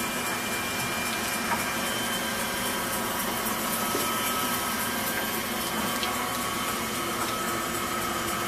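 Fresh meat and poultry cutting machine with a feed conveyor running steadily: a continuous motor hum with several steady whining tones, and a light click or two.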